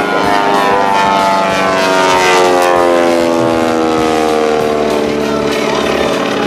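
Propeller airplane flying past, its engine tone falling steadily in pitch as it goes by.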